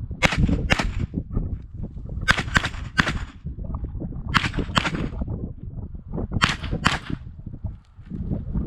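Pistol shots fired in quick pairs, about four pairs roughly two seconds apart: a shooter working through an IDPA stage right after the start signal.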